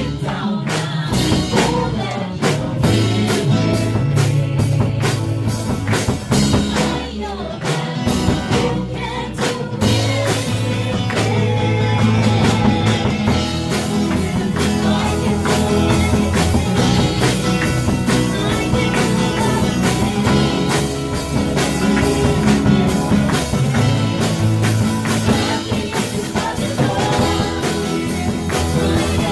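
Live worship band playing a song, with a woman singing the lead into a microphone over keyboard, electric and acoustic guitars and a drum kit.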